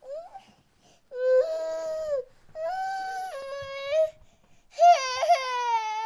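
Baby crying: a short rising squeak, then three drawn-out wails, each a second or more long with brief breaths between. The last wail wavers and falls in pitch near the end.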